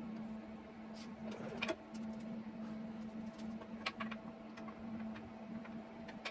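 Scattered clicks and knocks of the metal scooter frame being handled and repositioned, a few about a second in and a cluster about four seconds in, over a steady low hum.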